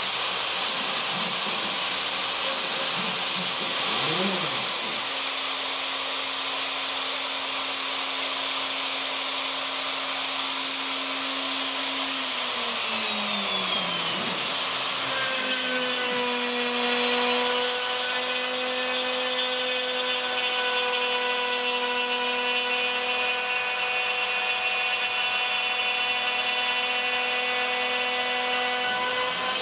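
Craftsman 2 hp wood router on a CNC machine running steadily with a whine as it cuts cedar. About twelve seconds in, its pitch falls over a couple of seconds; from about fifteen seconds in it rises and settles at a new steady pitch.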